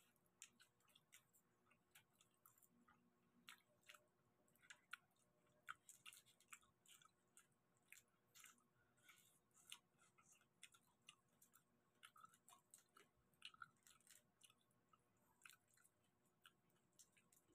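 Quiet chewing and wet mouth clicks of people eating garlic butter prawns, with prawn shells being pulled apart by hand. It comes as irregular short crackles and smacks.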